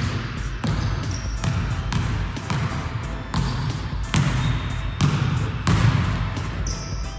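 A basketball dribbled on a wooden gym floor, steady bounces a little more than once a second.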